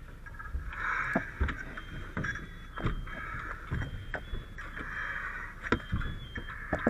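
Scattered knocks and clunks of gear being handled, under a hiss that swells and fades every second or two.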